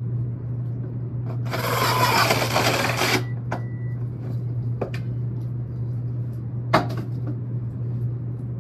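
A power drill with a 4-inch hole saw runs into a wooden rim joist for about a second and a half, then a few sharp knocks come as the cut-out wooden disc is worked free of the hole. A steady low hum lies underneath.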